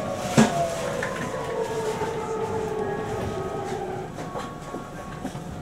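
Series 521 electric train's inverter and traction motor whine, heard inside a motor car, gliding steadily down in pitch as the train brakes into a station, with one sharp clack about half a second in. The whine fades out about four seconds in as the train slows to a crawl, leaving a few faint clicks.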